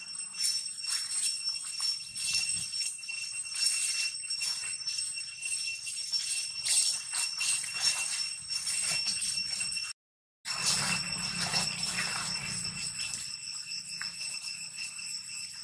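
Steady high-pitched drone of insects, a few fixed shrill tones held throughout, over a busy crackling of dry fallen leaves stirred by a macaque. Everything cuts out for half a second about ten seconds in.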